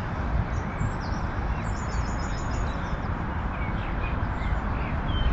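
Outdoor wind rumbling on the microphone, with small birds chirping faintly above it. A quick run of about six high notes comes about two seconds in.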